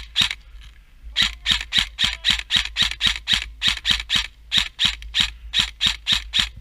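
Quick, even footsteps crunching on rough ground, about four a second, as of someone running. They pause for about a second near the start, then carry on steadily.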